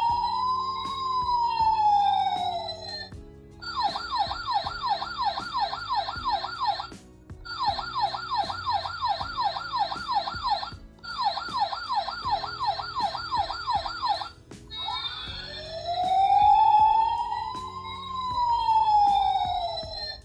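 Electronic toy emergency-vehicle siren: a slow rising-and-falling wail, then a fast warbling yelp in three runs with brief gaps, then the slow wail again. Light background music plays underneath.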